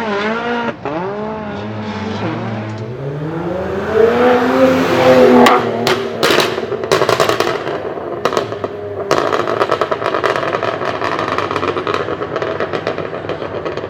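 Car engine blipped up and down, then revved up in one long rise, followed by several sharp exhaust bangs. For the last few seconds the exhaust keeps up a fast crackling run of pops.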